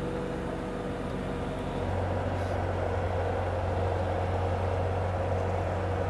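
Skid-steer loader engine running steadily while it carries a heavy strapped stack of kiln-dried slabs on its forks, its low hum growing louder about two seconds in.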